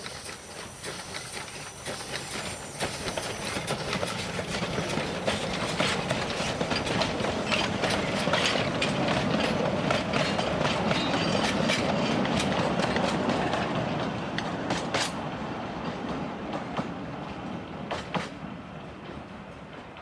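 009-scale narrow-gauge model train running on its track, its wheels clicking rapidly over the rail joints. It grows louder towards the middle and fades again as it passes by.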